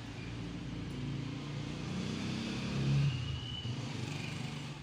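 A motor vehicle passing by: a low engine sound that grows to its loudest about three seconds in and then fades.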